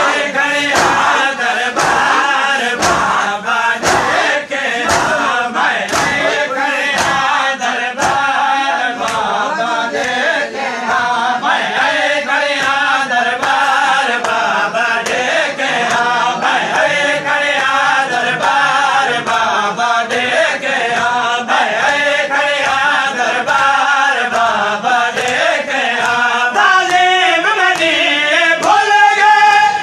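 Crowd of men chanting a Punjabi/Saraiki noha (Shia lament) in unison, with rhythmic matam: open hands striking chests about twice a second in time with the chant.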